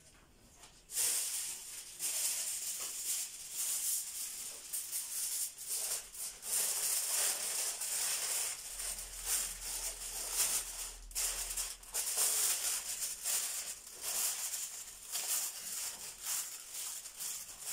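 Aluminium foil crinkling and rustling as it is spread and tucked over a tray of yogurt cups, starting about a second in, irregular crackles.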